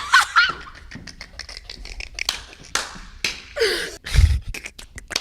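A man making rapid beatbox-like mouth noises: many short tongue clicks and pops with a few brief hissing breaths, and a deeper thump about four seconds in.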